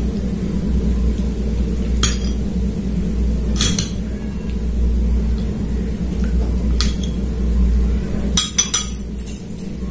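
A metal spoon clinks against a ceramic bowl of curry while curry is scooped out. There are a few sharp clinks spaced a second or more apart, then a quick cluster near the end, over a steady low hum.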